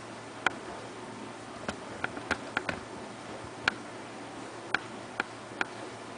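Pit bull's mouth smacking and clicking as it licks and chews peanut butter: about ten sharp, irregular clicks, several in a quick run between two and three seconds in, over a steady faint hiss.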